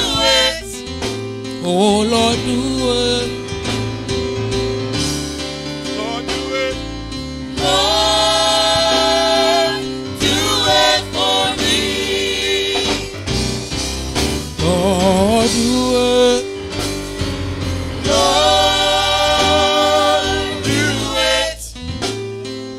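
Gospel praise team singing into microphones over sustained instrumental accompaniment, the voices holding long notes and sliding up into some of them.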